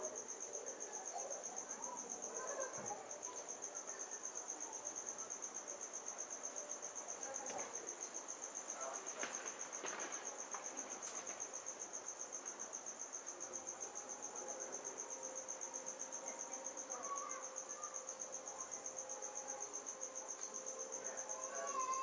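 An insect trills without a break at a high, steady pitch, in a fast, even pulse, over faint background sounds.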